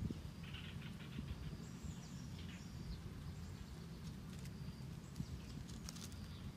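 A kitten's paws stepping through dry leaves and twigs: scattered light crackles and rustles over a steady low rumble.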